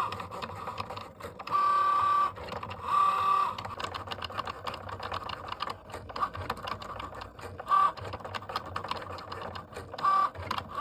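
Cricut Joy cutting machine at work on a design: its motors whine in short spells of up to about a second, over quick steady ticking as the carriage and mat move.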